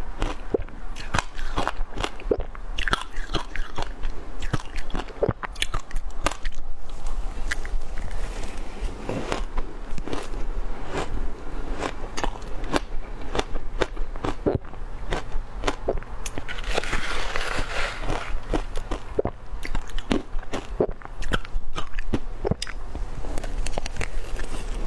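Mouth crunching and chewing frozen shaved ice: a rapid, continuous series of sharp crunches as spoonfuls of ice are bitten and chewed.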